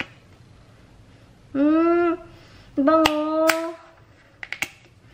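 A woman's short, steady "mmm" hum of approval as she smells a baby bath wash, followed near the end by a few light clicks.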